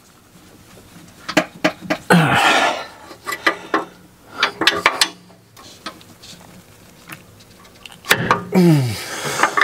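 Metal clinks and knocks of an open-end wrench against the exhaust's oxygen sensor as it is fitted and forced to break the sensor loose. A strained grunt of effort sounds about two seconds in and again near the end.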